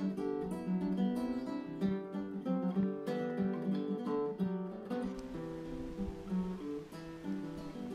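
Background music: acoustic guitar playing a quick run of plucked notes, thinning out to a few longer held notes about five seconds in.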